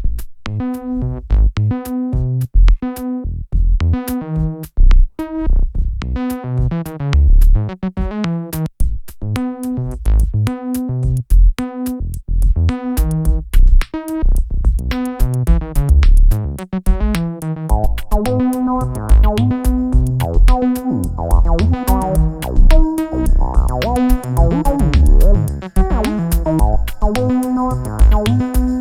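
Electronic music, slowed down: synthesizer notes over a steady drum-machine beat, with the synth lines growing fuller and starting to glide in pitch about two-thirds of the way in.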